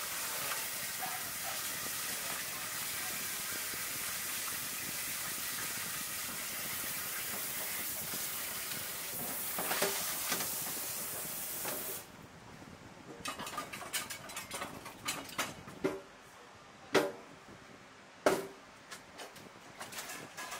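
Tap water pouring steadily into a steel bowl in a stainless sink while conger eels are washed, stopping suddenly about twelve seconds in. After that come scattered sharp knocks and clatters as the steel bowl and a plastic cutting board are handled and set down on the sink.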